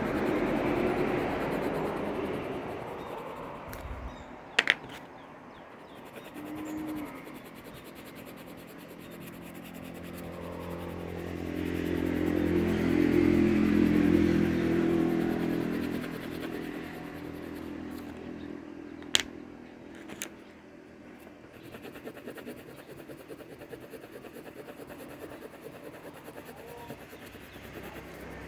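Passing motor traffic: one engine fades away at the start, then another swells, passes and fades around the middle. A couple of sharp clicks stand out, one a few seconds in and one about two-thirds through.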